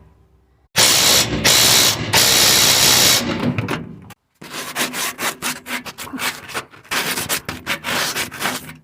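Hand work on an exhaust pipe while it is cleaned and wrapped for a leak repair. About a second in come three bursts of harsh scraping and rubbing. After a brief pause, a fast run of short rasping strokes follows.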